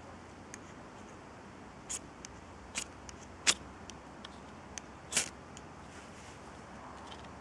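Ferrocerium rod scraped with a piece of hacksaw blade: a handful of short, sharp scraping strikes at irregular intervals, the loudest about three and a half seconds in and a slightly longer one about five seconds in, throwing sparks onto birch-bark shavings.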